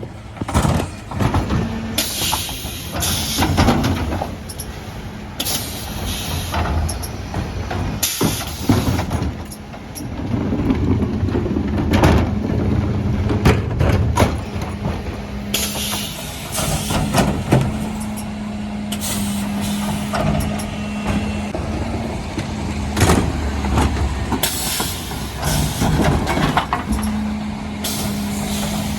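Mercedes Econic refuse truck at work: the engine runs with a steady low hum, broken by repeated clanks and air hisses as bins are handled and the truck stops and moves.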